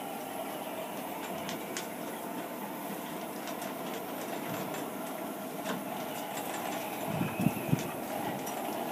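Strong wind blowing steadily across the marina. About seven seconds in there are a few short, low thumps and scattered faint clicks.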